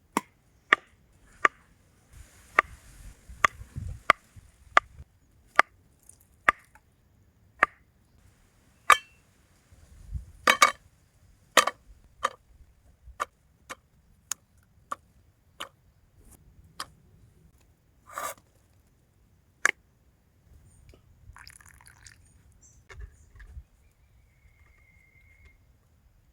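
A series of sharp, separate knocks or taps, about one to two a second, that thin out and stop about twenty seconds in, followed by faint rustling.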